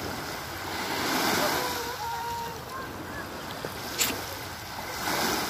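Small sea waves washing up onto a sandy beach, with wind on the microphone; the wash swells about a second in and again near the end. A sharp click about four seconds in.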